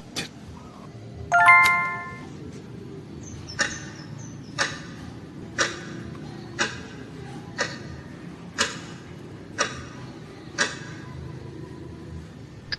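Editing sound effects: a bright ding-dong chime, then a short sharp tick about once a second, eight in a row, over a faint steady background.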